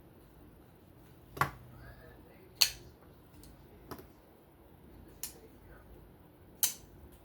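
Sharp metallic clicks and taps from handling a reassembled folding knife and small tools, about five spread over several seconds with quiet between them.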